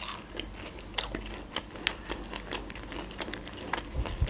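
Close-miked chewing of a McDonald's chicken nugget: irregular short crunches and wet mouth clicks.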